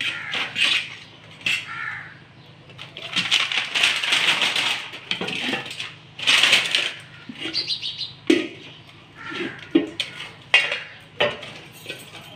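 Plastic wrapping rustling and crinkling as a non-stick cooking pot and its glass lid are handled, followed in the second half by several sharp clinks of the lid and metal pot knocking together.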